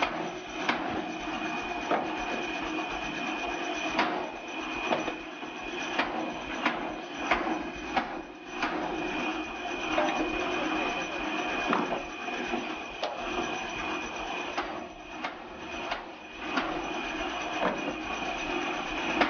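Tractor-driven PTO cone (screw) log splitter running: a steady mechanical drone with a high whine, broken by sharp cracks at irregular intervals as the threaded cone bores into and splits logs.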